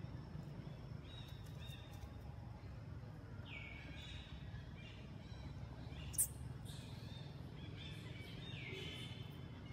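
Outdoor ambience with a steady low rumble and repeated high-pitched chirping calls, two of them longer and sweeping upward, about three and a half and nine seconds in. A single sharp click sounds about six seconds in.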